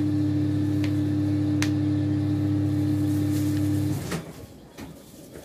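Samsung Smart Oven microwave running with a steady low hum, which cuts off abruptly about four seconds in as its door is opened. A few light clicks come before that.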